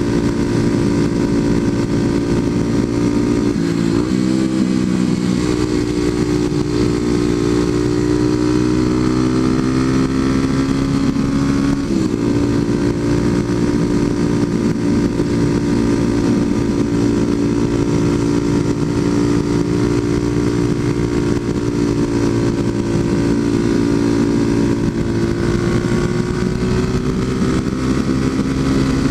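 Kawasaki KLX250SF's single-cylinder four-stroke engine through a Muzzy aftermarket exhaust, running steadily at road speed with wind rush. The engine note dips and comes back up about four seconds in, with another brief change about twelve seconds in and a slight rise near the end.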